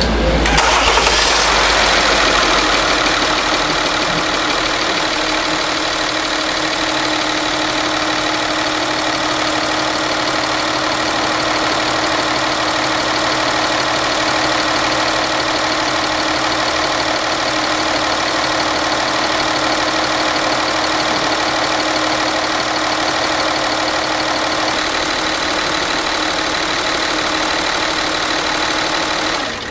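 Hyundai Veracruz V6 engine starting and settling into a steady idle. It is run just after a fresh oil change so the oil level can be checked.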